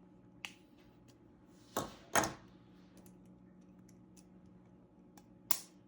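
Plastic clicks and knocks from a dishwasher door latch assembly being worked apart by hand: a light click, two sharper knocks close together, and another click near the end, over a faint steady hum.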